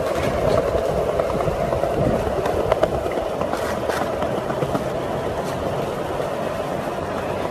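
Skateboard wheels rolling over stone paving and a concrete ledge: a steady rolling noise broken by a few sharp clicks.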